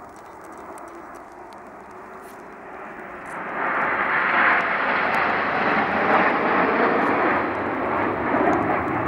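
Formation of nine BAE Hawk T1 jets flying past, their turbofan engines giving a steady jet rush that swells sharply about three seconds in and stays loud.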